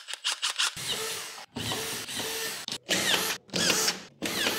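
Makita DFS452Z cordless brushless drywall screwdriver running: a quick string of very short trigger bursts, then several longer runs of about half a second each, some falling in pitch as the motor slows.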